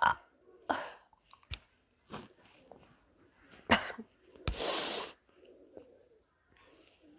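A woman burping in short bursts, brought up by carbonated jeera soda: small ones about one and two seconds in, a sharp loud one near four seconds, then a breathy half-second one.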